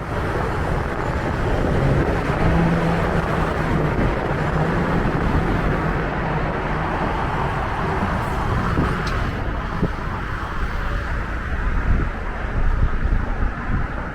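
Street traffic noise from passing cars, a steady rush with a low engine hum for a few seconds near the start.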